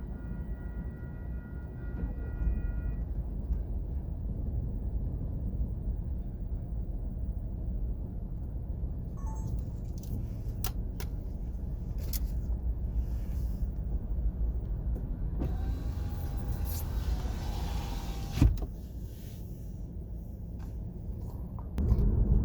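Diesel locomotive horn holding a chord that stops about three seconds in, followed by a steady low engine rumble with a few sharp clicks and one short thump near the end.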